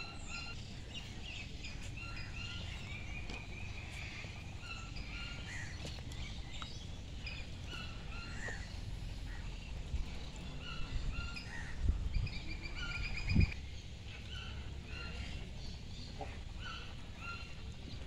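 Many birds chirping and calling from the aviaries, short repeated calls all through, over a low rumble on the microphone. Two dull thumps land close together about two-thirds of the way through, the loudest sounds here.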